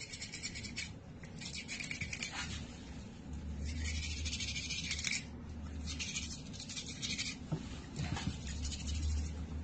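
A toothbrush scrubbing a cat's teeth: fast, scratchy bristle strokes in four spells of about a second each, then quieter.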